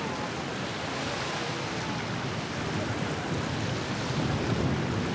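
Steady rushing noise of boats cruising on a lake, motors and wake water blended together, with wind on the microphone. The low rumble grows louder about four seconds in.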